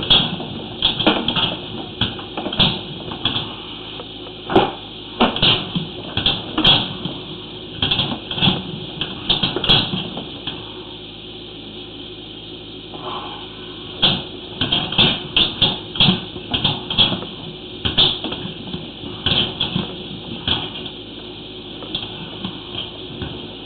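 Sewer inspection camera being pushed down the line on its push cable: irregular clattering knocks and rattles, with a quieter pause of a few seconds about halfway through.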